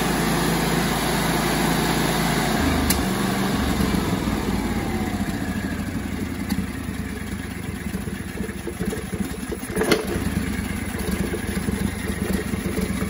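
Kawasaki FS481V air-cooled V-twin engine running steadily on propane with no air filter fitted, its note dropping slightly a few seconds in; it runs good after the oil-leak repair. A single sharp click near the end.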